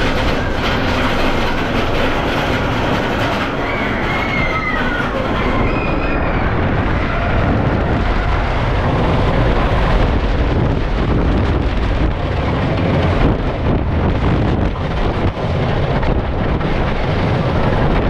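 Wooden roller coaster train rumbling and rattling over its wooden track at speed, with a few brief high squeals about four seconds in.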